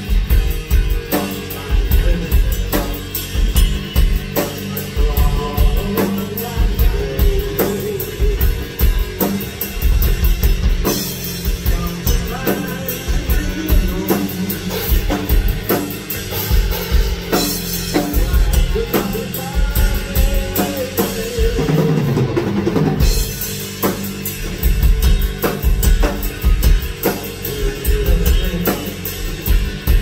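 Progressive rock band playing an instrumental passage live, with the drum kit loudest: busy kick and snare hits over sustained bass and guitar-like lines, with some sliding pitch bends about two-thirds of the way in.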